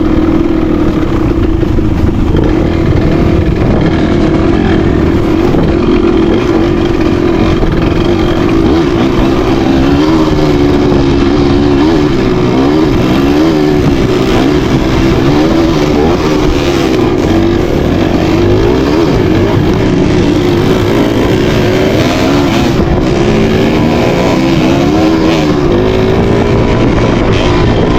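Trail motorcycle engine running under way, its pitch rising and falling again and again with the throttle.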